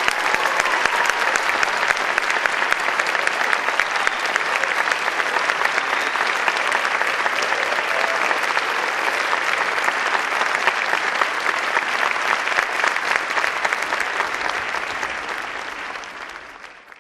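Large audience applauding, a dense, steady mass of clapping that fades out near the end.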